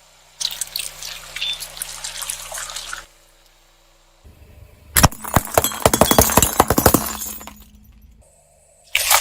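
Crackling and crunching of objects being crushed and popped, in several short sections that start and stop abruptly, with a dense run of sharp pops and cracks about five seconds in.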